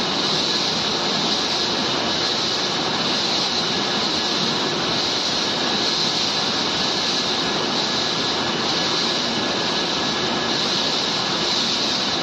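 TYJ760 III biomass pellet machine running: a loud, steady machine noise with a strong hiss.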